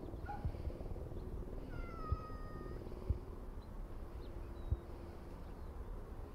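Long-haired cat meowing: a short chirp a moment in, then one drawn-out meow about two seconds in, over a low rumble of wind on the microphone.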